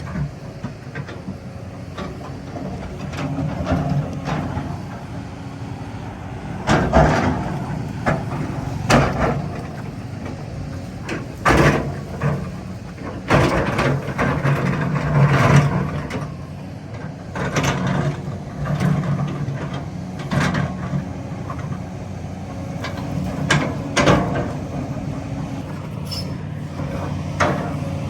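Kobelco 380 hydraulic excavator's diesel engine running steadily, with sharp clanks and bangs every few seconds from the machine at work.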